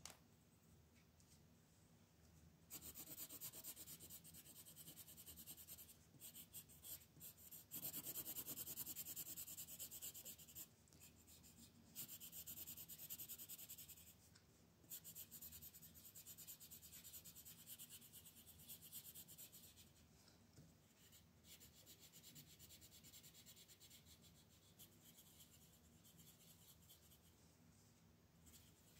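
Colored pencil scratching on the paper of a coloring book in quick back-and-forth shading strokes. It starts about three seconds in, pauses briefly a couple of times, and grows softer toward the end.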